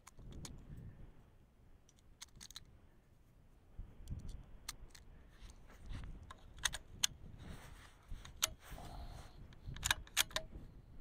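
Scattered small metallic clicks and snaps from reloading a Ruger Precision Rimfire .22 LR rifle: cartridges being pressed into the magazine and the magazine being seated. The clicks come singly and in pairs, most of them in the second half, over a low rumble of wind on the microphone.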